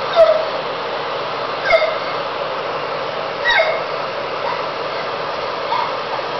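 A woman crying: four short, high sobbing cries, some sliding down in pitch, spaced about every one and a half to two seconds, with the last one fainter. A steady hiss runs underneath.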